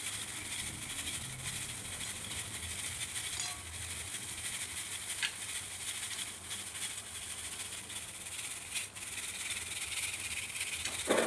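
Roasted gram (chana) rattling and rustling steadily as the grains are rubbed and shaken to loosen their papery husks. A louder knock comes near the end.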